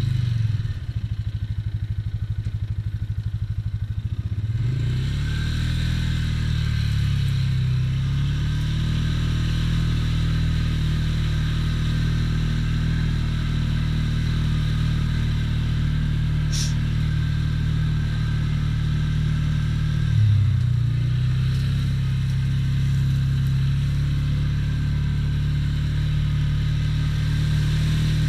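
ATV engine running while the quad is ridden along a rough, muddy trail. The engine note rises as the throttle is opened about five seconds in and again about twenty seconds in.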